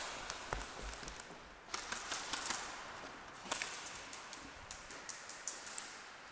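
Sporadic airsoft gunfire: scattered sharp clicks and snaps of shots and BB hits at irregular intervals, fainter than the exchange just before.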